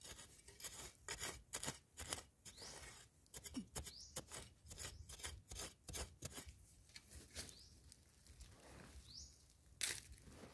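A metal digging spade chopping and scraping into dry, crumbly soil, about two strokes a second. The strokes thin out in the second half, and there is one louder strike near the end.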